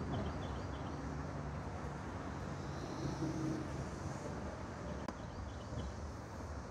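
Steady low outdoor rumble with a faint hum, and a bird's short run of three chirps twice, once at the start and again about five seconds in.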